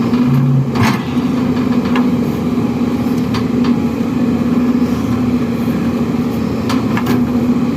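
Excavator diesel engine running steadily, with a few short sharp knocks scattered through it.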